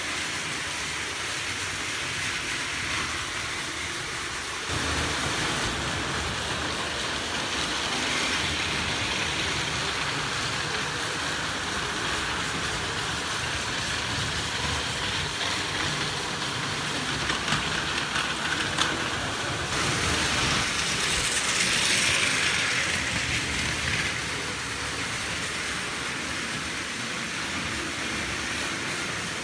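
Battery-powered Plarail toy trains, including a Seibu 9000 series set, running on plastic track: a steady motor whir and rattling wheel clatter. The sound grows louder for a few seconds about two-thirds through as a train passes close, then eases. The trains are running a little slowly, which the owner puts down to the batteries.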